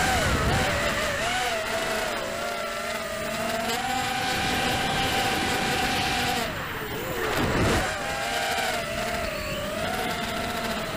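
ZMR quadcopter's brushless motors whining as heard from the onboard camera, the pitch wavering up and down with the throttle over wind noise. About seven seconds in the whine drops sharply and climbs back as the throttle is chopped and punched.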